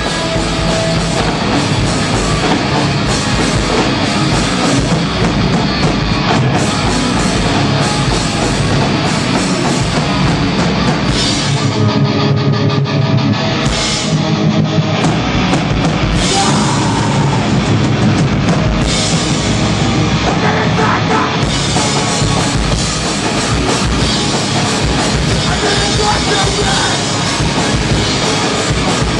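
Hardcore band playing live: loud, dense rock music driven by a drum kit.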